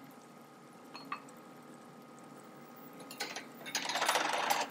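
Butter chicken gravy bubbling and sizzling in a nonstick pot, loud for about the last second and cutting off suddenly. Two faint ticks about a second in.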